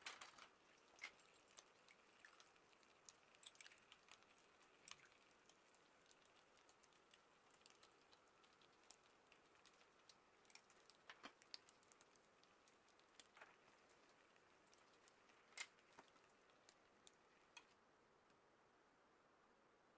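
Faint, irregular small clicks and scrapes of kitchen utensils against food and a frying pan: a knife spreading jam over egg-topped toast, then chopsticks picking up and laying down ham.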